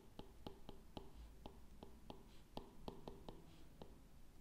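Faint, quick clicks of a stylus tip tapping and sliding on a tablet's glass screen as numbers and plus signs are handwritten, about four taps a second.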